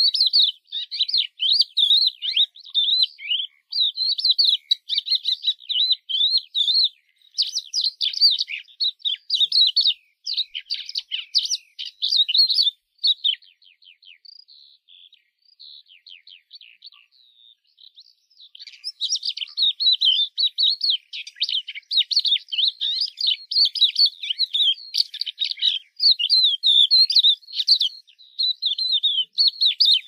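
Crested lark singing a long, fast, warbling song of high twittering notes. About halfway through the song thins to scattered faint notes for some five seconds, then picks up again and runs on densely.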